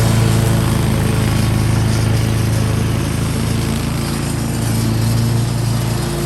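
Riding lawn mower engine running steadily under load while mowing grass. Its pitch holds nearly constant, with small dips in strength.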